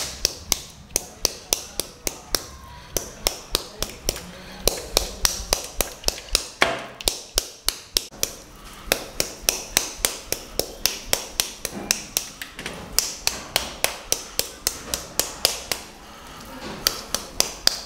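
A red-handled fish scaler studded with nail points taps over and over on the skin of boiled pork belly, pricking it full of tiny holes to get crackling. The taps are sharp and come about four a second, with a couple of short pauses.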